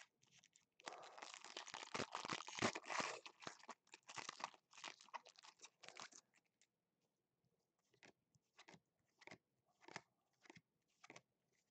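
A Panini Prestige football card foil pack being torn open, its wrapper crinkling and crackling for about five seconds. Then a series of light clicks and snaps as the cards are handled and sorted through by hand.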